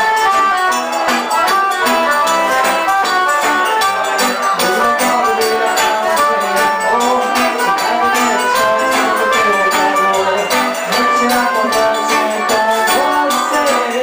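Live forró band playing a steady dance rhythm: accordion, guitar, zabumba drum and hand percussion.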